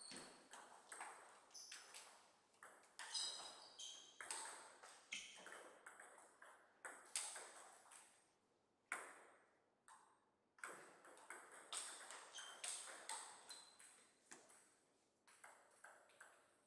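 Table tennis ball clicking off the rackets and bouncing on the table in quick, irregular runs of sharp pings. Two rallies are separated by a short pause about halfway through.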